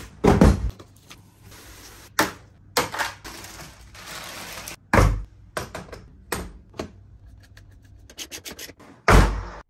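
Handling noises from unpacking a Traxxas X-Maxx RC monster truck: a series of sharp thunks and knocks as the box and parts are moved and set down, the loudest near the start, about halfway and near the end. Between them comes a stretch of crinkling plastic wrap around the truck body.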